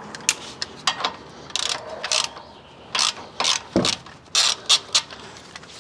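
Hand ratchet wrench clicking in short, uneven bursts as it backs out a 13 mm bolt holding the wheel speed sensor harness.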